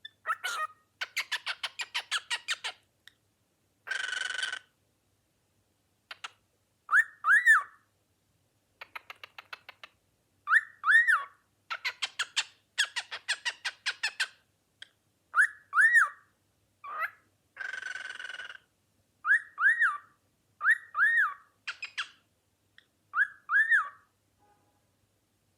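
Cockatiel chattering and whistling: quick runs of short clicky chirps, several pairs of short rising-and-falling whistles, and two longer harsh screeches.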